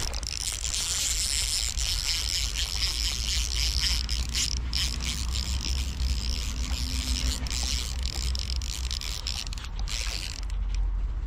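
Small baitcasting reel being cranked to retrieve line, its gears and spool giving a steady whirring ratchet noise that eases off near the end. A low rumble of wind on the microphone runs underneath.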